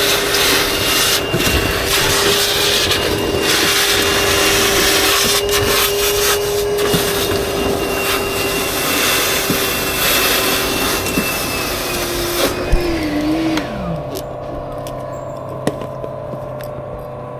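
A small electric motor with rushing air runs steadily with a constant whine, then is switched off about twelve seconds in and winds down, its pitch falling away.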